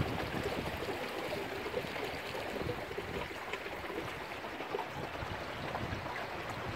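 Water splashing and gurgling steadily along the hull of a small wooden sailing boat moving under sail through choppy water.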